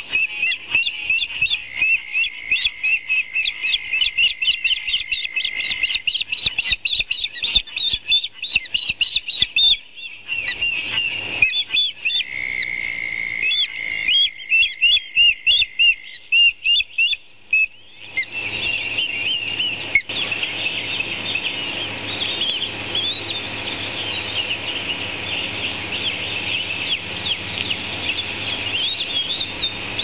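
Ospreys calling at the nest: rapid runs of high, sharp chirps that break off briefly twice, with a steady high tone underneath for a few seconds, also twice. From about 18 seconds in the chirping goes on over a steady hiss.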